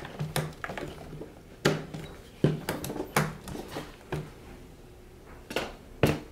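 Laptop bottom cover being pressed down onto the chassis around its edges: a series of about seven irregular sharp clicks and knocks as the cover's clips snap into place and the panel taps against the frame.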